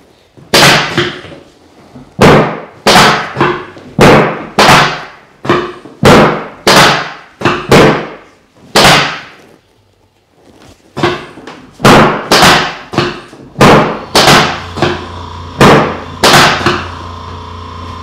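Chiropractic drop table thudding again and again as the chiropractor thrusts on the mid-back: about twenty sharp, loud knocks, one or two a second, with a short pause midway.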